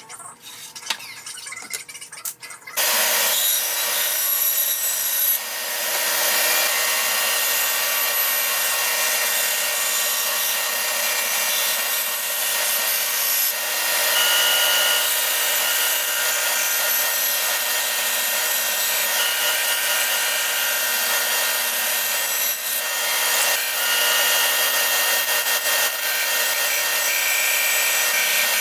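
A few light knocks, then about three seconds in a band saw starts running and cuts wood steadily, a continuous cutting noise over a steady hum.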